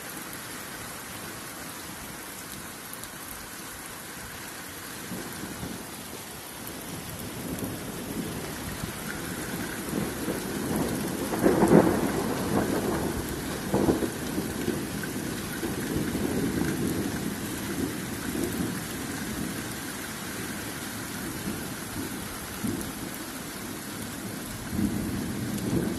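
Heavy rain and hail pelting down steadily in a hailstorm, growing heavier about a third of the way in, with thunder rumbling near the middle.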